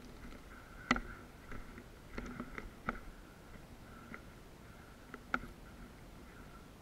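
Scattered light knocks, clicks and scrapes of gloved hands, boots and gear against a crumbling brick wall top as a person clambers along it; five or six sharp clicks, the loudest about a second in and another near the end.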